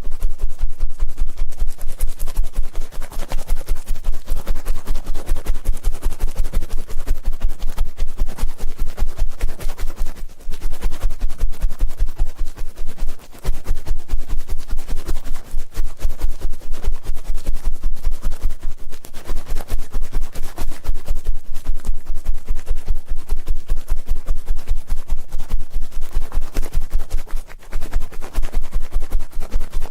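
Ear-cleaning ASMR: rapid, rhythmic scratching and rubbing right against the microphone, about four to five strokes a second, with a few brief pauses.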